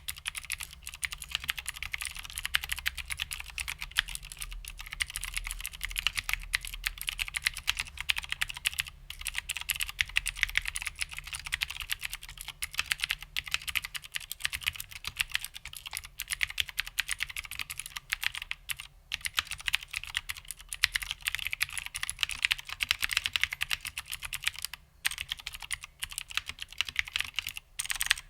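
Continuous fast typing on a vintage HMC C386SX mechanical keyboard with vintage Cherry MX Blue switches: dense, crisp clicking keystrokes with a few short pauses.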